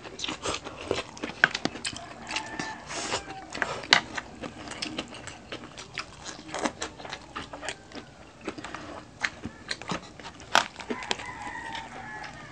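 Close-up eating sounds: crispy pata (deep-fried pork knuckle) being bitten and chewed, with irregular sharp crunches and mouth clicks.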